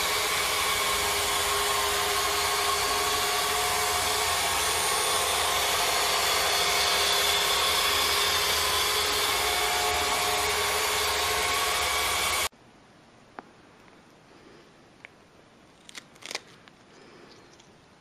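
Steady rushing noise of a small electric motor running for about twelve seconds, cutting off abruptly. After it comes a much quieter stretch with a few faint clicks.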